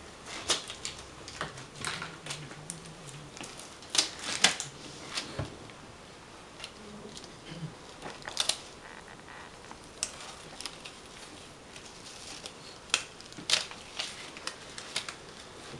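Irregular sharp clicks and snaps, about a dozen spread unevenly, loudest around four seconds in, at about eight and a half seconds, and around thirteen seconds.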